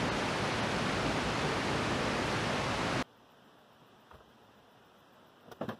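Steady, even rushing noise of outdoor background, which cuts off suddenly about three seconds in and leaves near silence.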